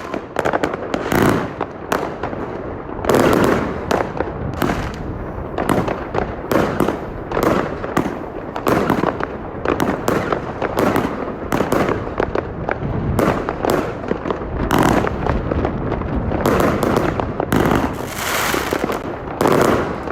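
Alpha Fireworks Venom 54-shot cake firing: a dense run of loud shots and bursts, one after another.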